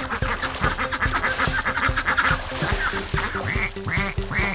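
Ducks quacking: a fast chattering run of quacks, then single quacks about two a second from near the middle on. Light children's music plays under them.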